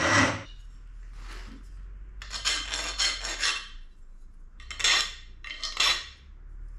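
Steel parts clinking and scraping in a bench vise as machined steel bosses are pressed into a steel plate: a cluster of sharp metallic rattles about two seconds in, then two shorter clinks near the end.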